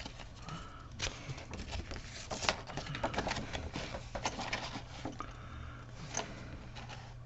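Small plastic model-kit parts being handled and fitted together: scattered light clicks and taps, over a faint steady low hum.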